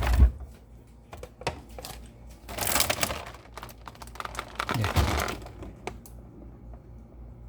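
Food packages and containers being handled and set down: a knock at the start, then scattered clicks and taps with two short rustles of packaging.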